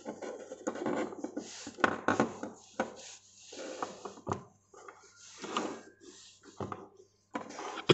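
Hands handling plastic push-button units and wires on a workbench: scattered clicks, light knocks and rubbing.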